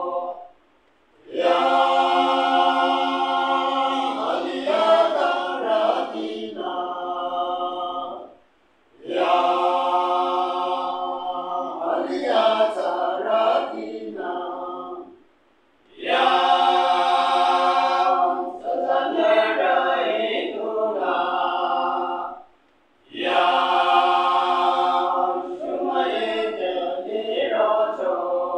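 Men's choir singing a cappella, holding long notes in phrases of about six seconds with a brief pause for breath between each.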